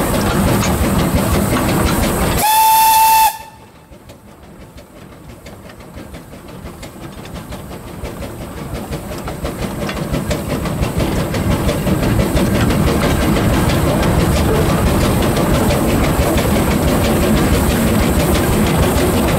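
The 1924 Wee Georgie Wood narrow-gauge steam locomotive, heard from its footplate, sounds one steady whistle blast of about a second, about two and a half seconds in. The train's running noise with wheel clicks on the rails drops sharply right after the whistle and builds back up over the following several seconds.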